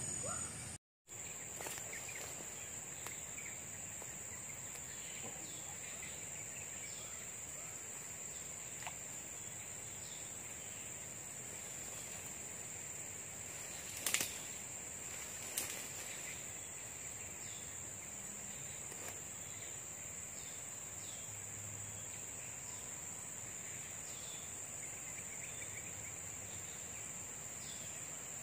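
A steady, high-pitched insect drone, with faint short chirps repeating about once a second. Two sharp clicks about a second and a half apart near the middle stand out above it.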